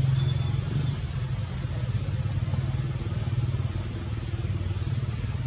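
An engine running steadily, a constant low hum. A faint short high whistle comes in about three and a half seconds in.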